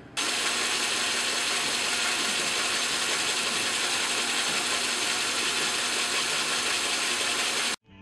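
Small metal lathe running steadily, turning an aluminium bar between centres; the sound cuts off abruptly near the end.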